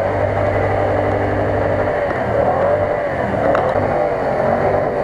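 Toyota Tundra pickup's engine revving under load as the truck churns through deep mud, its tyres spinning and throwing mud. The engine holds a steady pitch for about two seconds, then its revs rise and fall.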